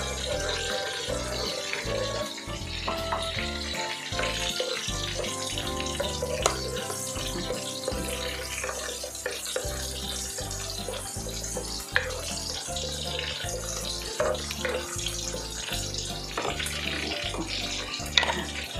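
Smashed garlic cloves sizzling in hot oil in a wok, with a few knocks of the wooden spatula against the pan, over background music.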